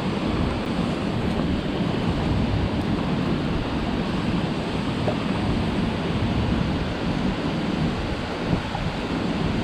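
Steady rush of river current, with wind buffeting the microphone.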